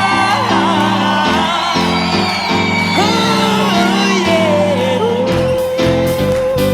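Live gospel band music with singing, sustained sung and instrumental notes over a bass line; drum hits come in near the end.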